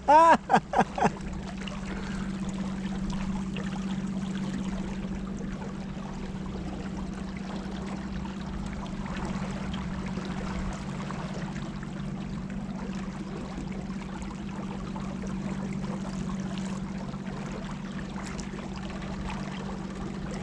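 River water trickling and gurgling around a small boat drifting on the current, over a steady low hum.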